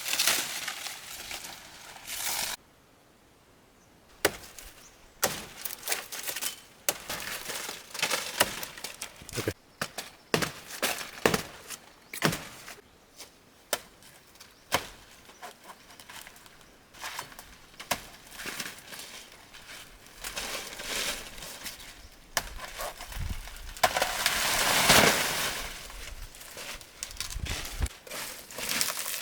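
Irregular sharp chops, snaps and knocks, with rustling, from banana bunches being cut and handled; a longer, louder rustle swells about three-quarters of the way through.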